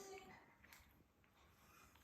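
Near silence: room tone with a few faint soft clicks and rustles.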